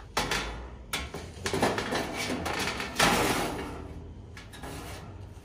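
Stainless steel panel being slid and fitted into the base of a built-in gas grill: metal scraping and clattering in several strokes, the loudest about three seconds in.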